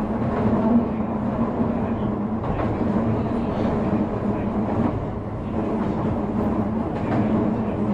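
Running noise inside a Shizuoka Railway A3000 series electric train car rolling along at a steady pace: a continuous rumble of wheels on rail with a few faint clicks.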